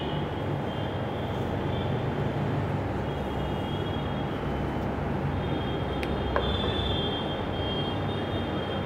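Steady background rumble with a low hum and a faint high whine, no speech; a single sharp click about six seconds in.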